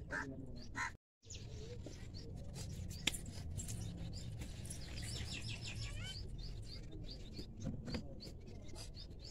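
Birds chirping outdoors, with a quick run of high twittering chirps about five seconds in and scattered single chirps after. A few short, harsher calls sound in the first second, followed by a brief dropout in the audio.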